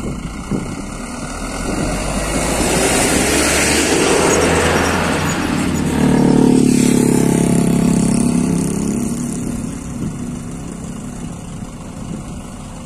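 A motor vehicle driving past close by on the road, its engine and tyre noise swelling over a few seconds, loudest a little past the middle, then fading away.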